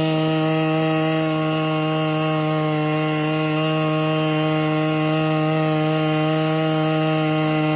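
A small engine running steadily at one constant speed, its pitch and loudness unchanging.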